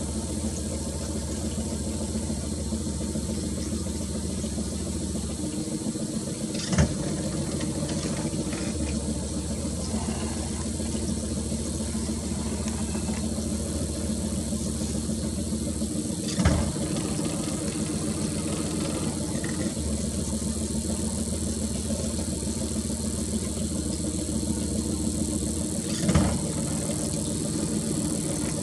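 Boat motor idling steadily, with three short knocks spaced about ten seconds apart.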